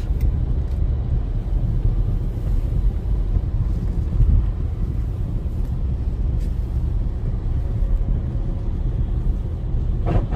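Steady low rumble of a car driving, heard from inside the cabin: engine and tyres running on a wet road.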